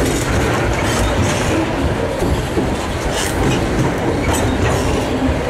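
Covered hopper cars of a freight train rolling past at close range: a loud, steady rumble of steel wheels on the rails with irregular clanks.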